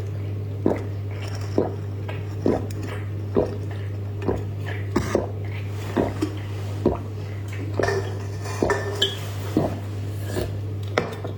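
Light clinks of a utensil against dishware, repeated about once a second, over a steady low hum.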